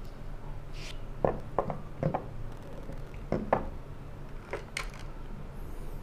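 Plastic bicycle lights handled and set down on a tabletop: a string of short clicks and knocks, in clusters about a second in and around three and a half seconds, with a last couple near five seconds.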